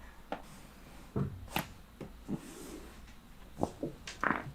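Several short clicks and knocks during a chiropractic adjustment. The sharpest, about a second and a half in, stands out from the rest.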